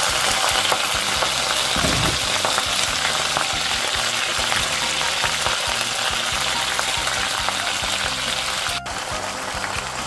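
Cut green onion pieces sizzling steadily in a hot stainless-steel wok, freshly added to the pan, the sizzle easing slightly near the end.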